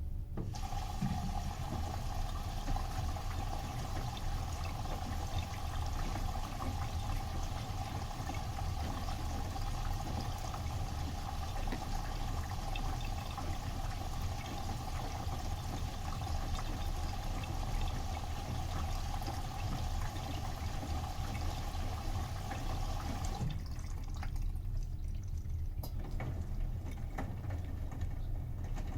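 Bosch washing machine filling with water: a steady hissing rush with a steady whine through the inlet valve, which cuts off about 23 seconds in. A low rumble runs underneath throughout.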